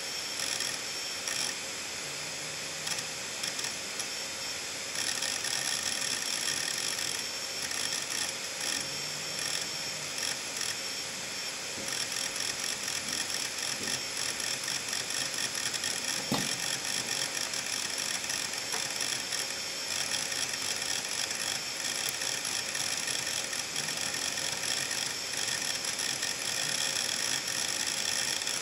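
Opened Seagate Medalist ST38630A hard drive seeking non-stop: the head actuator arm swings back and forth very rapidly, a fast dense chatter of clicks over the steady high whine of the spinning platters, with one sharper click about halfway through. The constant seeking comes from several large files being written to many parts of the disk at once, a heavy load the uploader says will soon wear out a drive.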